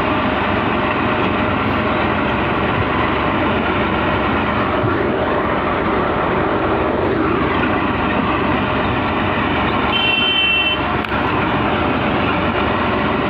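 Diesel tractor engine running steadily as the tractor pulls a loaded trolley along a road, a loud, unbroken din of engine and road noise.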